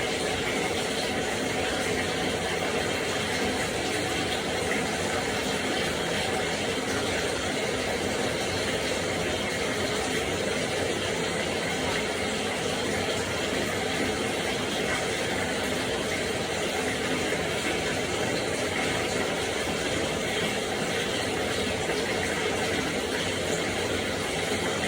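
Water running steadily into a hinoki wood bathtub, an even, unbroken splashing rush.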